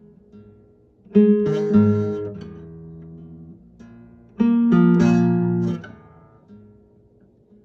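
Acoustic guitar played slowly. A strummed chord about a second in rings and fades. A second chord about four and a half seconds in rings until it is cut short near six seconds, with a few quiet single notes before and after.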